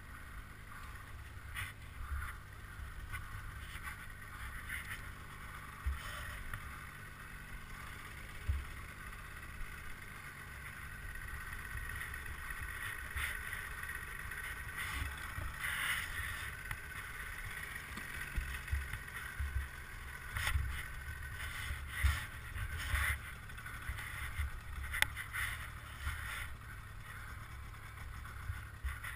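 Irregular rustling and dull thumps as a rider struggles with a snowmobile stuck in deep snow, picked up close by a helmet-mounted camera.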